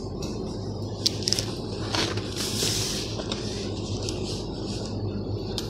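Cardboard box of a drill bit set handled and turned in the hand: rubbing and scraping with a few light clicks, over a steady low hum.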